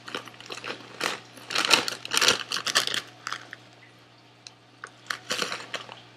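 Crinkling of a foil-lined Lay's potato chip bag being handled and tipped open, together with the crunch of chips being chewed. The crackling is densest and loudest from about one to three seconds in, then quiets, with a shorter burst near the end.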